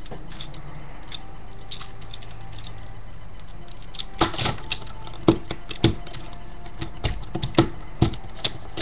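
Hard plastic parts of a Revenge of the Fallen Optimus Prime action figure clicking and clacking as they are handled and pushed to peg into place: a few faint clicks at first, then a run of sharper, irregular clacks from about four seconds in.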